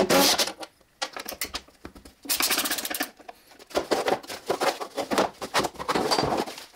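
Rapid mechanical clicking and rattling from work on a 1964 Triumph TR4's steel door: a cordless drill at a screw at the start, then metal parts clattering in short runs as the door's inner mechanisms are handled.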